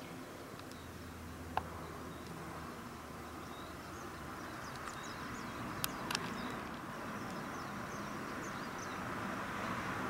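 Steady outdoor background noise with a low hum, likely distant traffic, under faint, short high chirps of small birds, with a few sharp clicks, one about a second and a half in and two close together around the middle.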